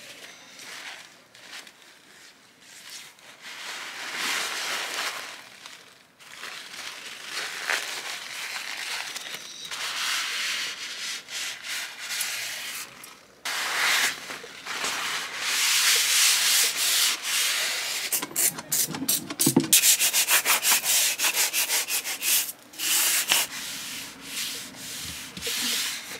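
Hand scrubbing and wiping a surface to clean up spilled liquid makeup foundation. Rubbing strokes come in bursts, then turn into fast back-and-forth scrubbing at about five strokes a second about three-quarters of the way through.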